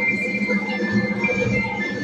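Instrumental music with steady held notes, the accompaniment to a children's group patriotic song.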